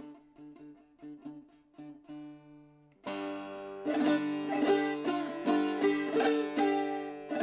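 Handmade Shurangiz, a Persian plucked lute, played solo in an improvisation. Soft single plucked notes ring over a held drone note, then about three seconds in the playing turns suddenly louder, with fast, dense runs of plucked notes.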